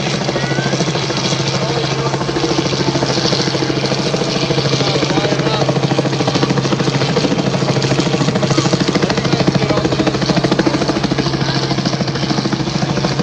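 Helicopter flying overhead: a steady, rapid rotor beat over a constant engine drone.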